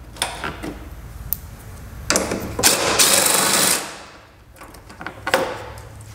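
Ratchet with a 10 mm socket backing out the shroud bolts on a Craftsman 917 lawn tractor: scattered clicks and knocks, then a run of fast ratcheting about two seconds in that lasts over a second, and another short burst near the end.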